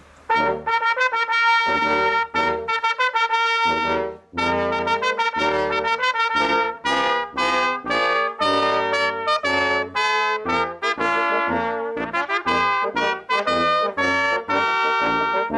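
Brass quintet of two trumpets, French horn, trombone and tuba playing a piece together. The music starts about a quarter second in, with a short break around four seconds in.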